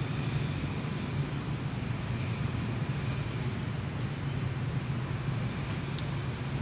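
Steady low rumble of outdoor background noise with a faint hiss above it, unchanging throughout.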